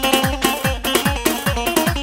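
Party dance music from a band: a melody of held notes over a steady, fast beat of deep drum hits, about four a second.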